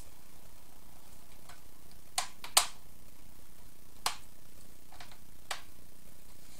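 Chrome grill cover pressed by hand into a Road Glide's plastic lower fairing, its tabs clicking into place: four short, sharp clicks, the loudest about two and a half seconds in.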